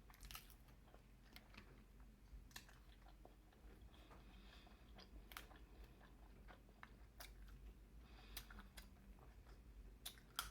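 Faint close-up chewing of a mouthful of seafood, with scattered short wet clicks and smacks of the mouth.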